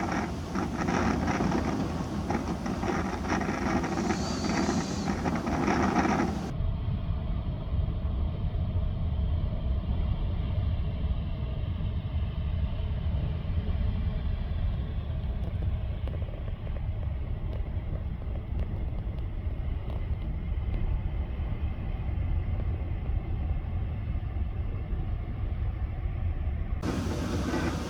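Gale-force storm wind, mostly a deep steady rumble of gusts with a hiss over it; the hiss drops away suddenly about six seconds in and returns near the end.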